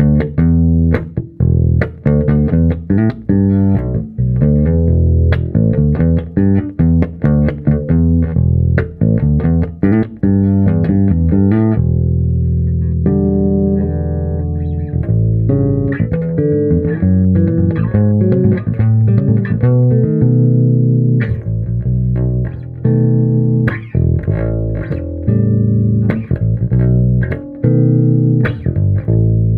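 1985 Japanese-made Fender Precision Bass with a maple fretboard, played through a bass amp and GK 4x10 cabinet. It opens with a quick run of sharply plucked notes, moves to several long held notes about halfway through, then plays shorter phrases with brief pauses.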